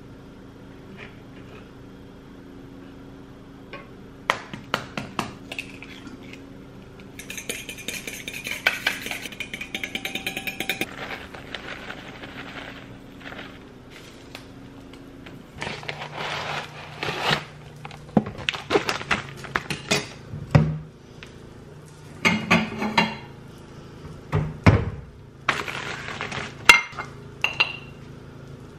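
Kitchen cooking clatter: a fork, a frying pan on a gas stove and a ceramic plate clinking and knocking, over a steady low hum. There are a few seconds of crinkling about a third of the way in.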